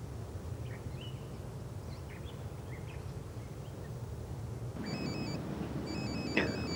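Outdoor background with a low wind rumble and faint bird chirps. About five seconds in, a mobile phone starts ringing with a repeating electronic trill of short beeps.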